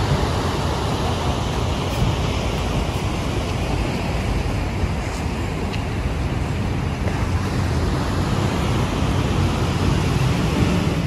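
Steady rushing noise of ocean surf and wind, heaviest in the low end.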